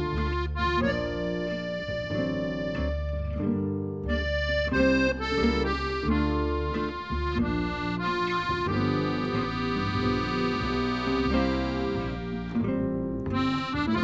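Background instrumental music: held chords and a melody over a steady bass line.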